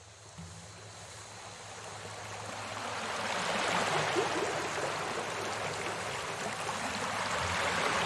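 Steady rain falling on wet pavement, a constant hiss of drops that fades in over the first few seconds and then holds steady.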